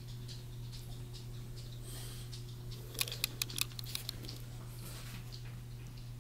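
Faint rustling and ticking from young kittens squirming on a plush blanket, with a quick run of sharp clicks about three seconds in, over a steady low hum.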